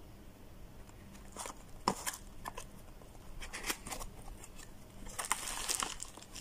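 Handling of a cardboard box being opened, with scattered light clicks and scrapes, then a plastic bag crinkling for about the last second as a wrapped part is pulled out.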